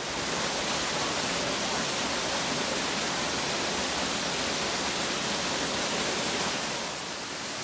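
Waterfall rushing over rocks: a steady hiss of falling water that eases slightly near the end.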